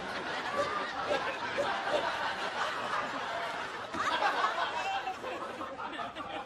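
Studio audience laughing steadily, many voices at once, swelling a little after four seconds in.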